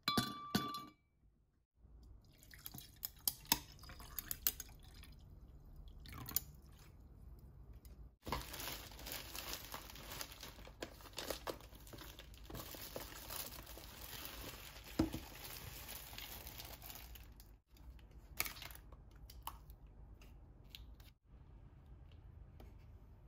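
Ice cubes dropped into a glass tumbler, clinking sharply against the glass. Then come scattered small clicks and knocks, and a long steady rush of liquid poured over the ice for about nine seconds.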